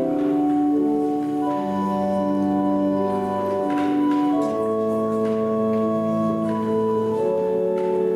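Organ playing slow, held chords, the notes changing every second or two.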